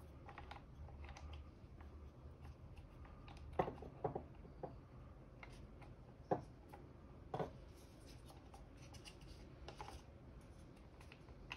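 Faint clicks, taps and light scraping of hands handling a DQ381 transmission mechatronic unit's black plastic housing as a new pressure sensor is fitted into its seat. A few sharper clicks stand out in the middle.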